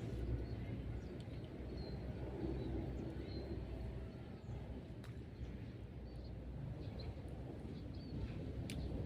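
Outdoor pond-side ambience: a steady low rumble with short, high bird chirps here and there and a few faint clicks.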